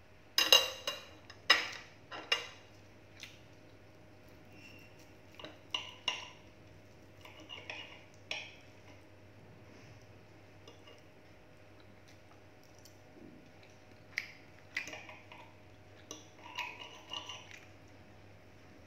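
Stainless knife and fork clinking and scraping on a ceramic dinner plate while cutting into a sauced chicken drumstick. The clinks come in scattered clusters, the loudest in the first couple of seconds.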